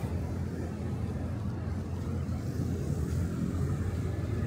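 Busy city street ambience: a steady low rumble of road traffic.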